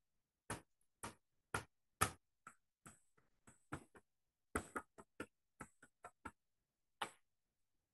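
Small round dye ink pad tapped again and again onto a clear stamp held in a stamp positioner while inking it: a run of light, irregular taps, about two or three a second.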